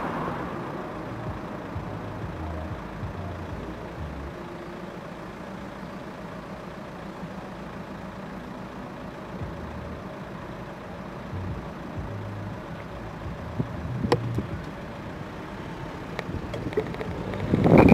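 Car engines idling in a queue of stopped traffic: a steady low hum. There is a sharp click about two-thirds of the way through and a brief louder burst at the very end.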